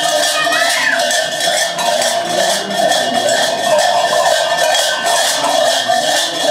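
Cowbells worn on a botarga's costume clanging continuously and unevenly as he moves about.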